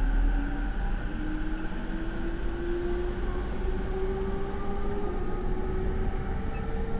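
JR E231 series electric train's traction motors and Mitsubishi IGBT inverter, heard from inside the motor car, with a whine that climbs steadily in pitch as the train gathers speed over the rumble of the wheels on the rails. The motor sound is loud and slightly off, a little abnormal for this equipment-renewed car.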